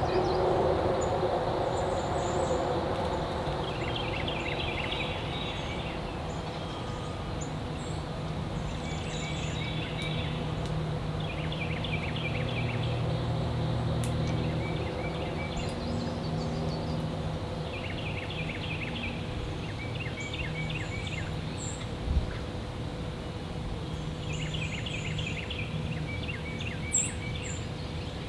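Wild songbirds singing short phrases of quick repeated notes every few seconds, with a few higher chirps, over a low steady rumble of outdoor background noise. A brief soft thump comes about two-thirds of the way through.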